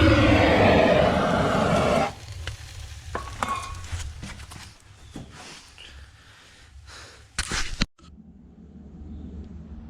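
An engine running steadily, cut off abruptly about two seconds in. Then come scattered light clicks and clinks of metal and plastic parts being handled, and a short loud rustle about three-quarters of the way through.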